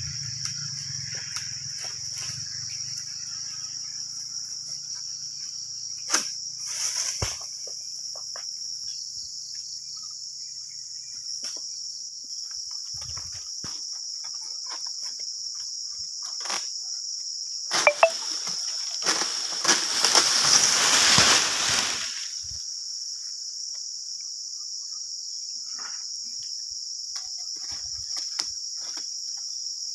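Steady high-pitched drone of insects with scattered short knocks. A loud stretch of rustling with sharp knocks comes about two-thirds of the way in.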